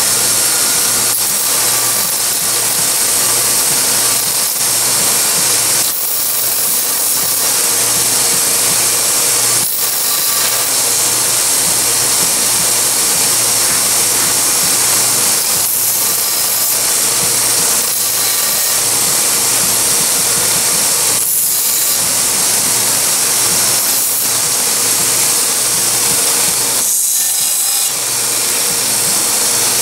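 Small narrow-belt grinder running, with the epoxied handle scales of a neck knife pressed against the abrasive belt and ground flush: a steady grinding hiss over the motor's hum. The grinding noise changes briefly a few times, most plainly near the end.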